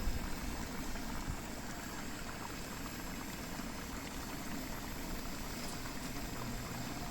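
Steady hiss of a Coleman gasoline camp stove with the cast iron skillet on it, continuing evenly without breaks.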